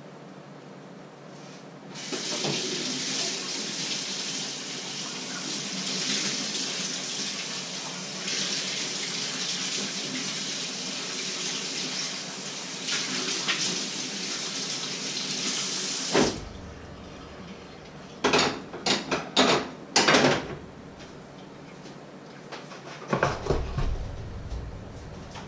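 Kitchen tap running into the sink for about fourteen seconds, then turned off. A quick run of sharp knocks follows, and a few dull thumps near the end.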